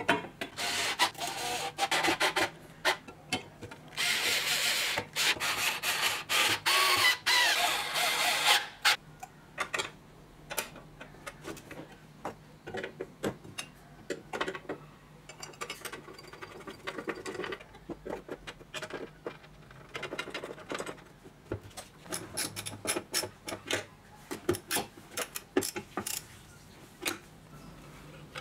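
Hand work on a bench grinder's grinding wheel and metal guard: scraping and rubbing for the first several seconds, loudest from about four to eight seconds in, then scattered clicks and taps of parts being handled.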